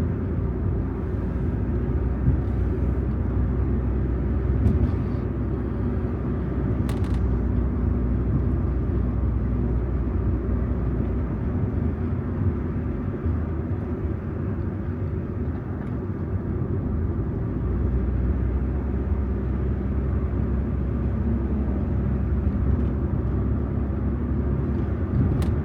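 Steady low rumble that starts abruptly and holds unchanged, with a single faint tick about seven seconds in.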